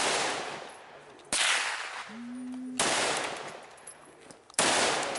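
Four rifle shots, each a sharp crack followed by about a second of echoing tail, spaced roughly one and a half seconds apart.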